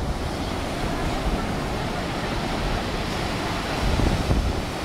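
Surf breaking and washing up a sandy beach in rough sea, a steady rush of waves that swells near the end, with wind buffeting the microphone as a low rumble.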